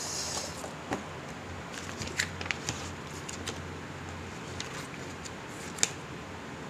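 Handling noise from a paper instruction manual being pulled out, unfolded and leafed through: a short rustle at the start, then scattered light ticks and taps of paper and hands, the sharpest one near the end.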